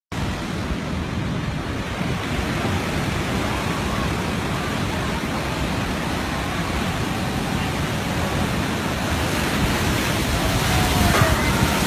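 Heavy ocean surf breaking on the shore as a steady rushing noise, with wind on the microphone, growing a little louder near the end.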